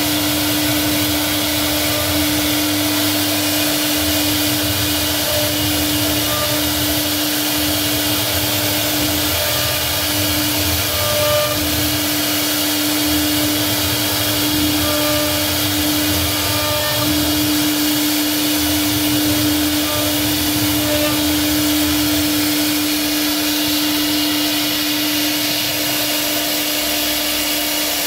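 CNC router spindle running steadily as its bit carves a relief pattern into a wooden door panel: a steady whine with one strong unchanging tone and a hiss over it.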